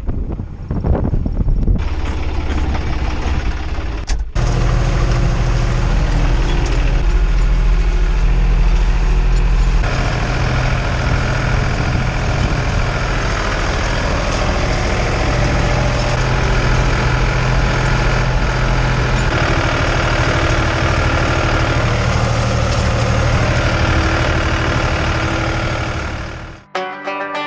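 Farm tractor engine running steadily with a deep hum, its sound changing abruptly about two, four and ten seconds in, then cutting off just before the end.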